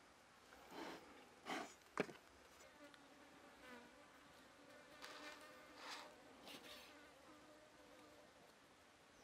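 Faint buzzing of a flying insect hovering near the microphone, steady for several seconds before fading out. A sharp knock on the wooden table about two seconds in, with lighter knocks and rustling just before it.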